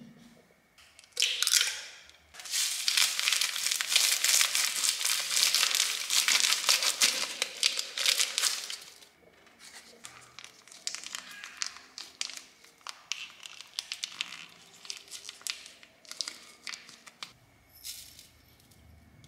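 Plastic seasoning sachet crinkling and being torn open. A short burst comes about a second in, then dense crackling for about six seconds, then sparser crinkles and ticks.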